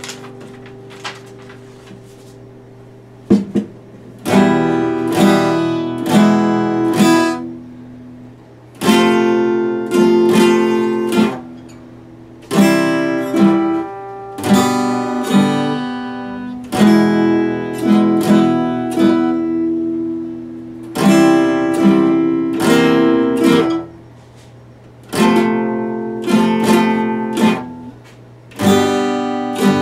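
Epiphone acoustic guitar strummed in full chords, in short phrases of about four seconds with brief pauses between them. The first few seconds are quieter, with a chord dying away and a sharp tap before the strumming starts.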